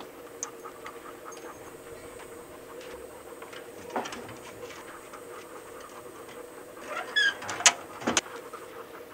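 Hounds being loaded into a dog box on a pickup: scrabbling and light knocking as they climb in, then a few sharp clanks of the compartment doors and latches near the end.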